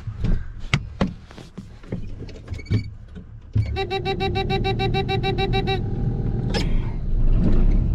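Combine harvester: a few clicks and knocks, then about halfway through a machine sound starts suddenly, with a steady low rumble and a fast, even pulsing tone.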